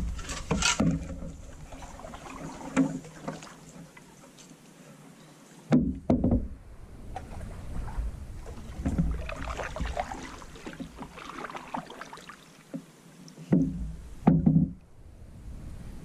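A Northstar Northwind 16 canoe being paddled: the swish and splash of paddle strokes in the water, with low knocks on the canoe about six seconds in and again near the end.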